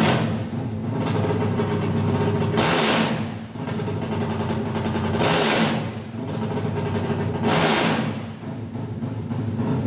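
A 380 cc Sonic drag bike's engine running, its throttle blipped in three louder surges about two and a half seconds apart.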